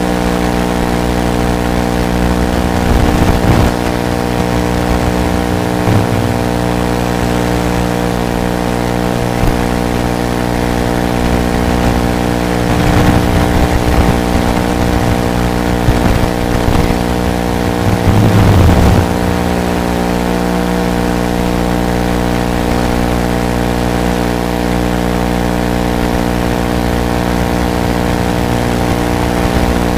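A steady, loud buzz made of several fixed-pitch tones that do not change with the drone's flying. It swells briefly with a louder rush about three seconds in, again around thirteen seconds and most strongly around eighteen seconds.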